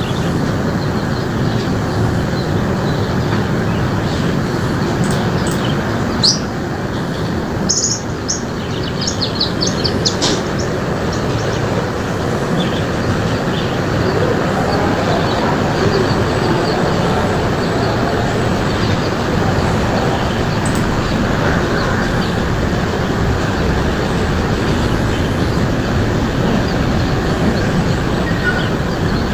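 Birds chirping in short high bursts, clustered between about six and ten seconds in, over a steady loud rushing noise.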